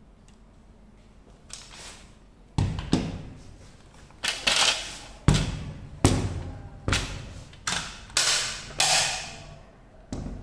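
A series of about ten hard plastic knocks and clatters, some with a short scraping tail, as a cordless band saw's wheel covers and body are handled and set down on a hard tabletop.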